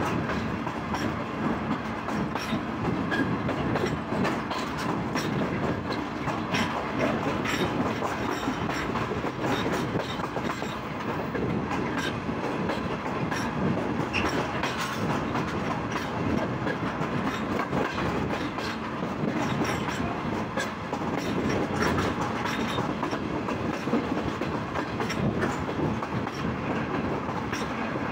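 Passenger train running steadily at speed, heard from an open coach door: a continuous rumble of wheels on track with frequent clicks as the wheels pass over rail joints.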